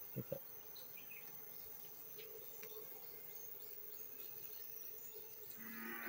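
Faint steady hum of honeybees in an open wooden hive box, with faint high chirping in the background. Two soft knocks sound just after the start.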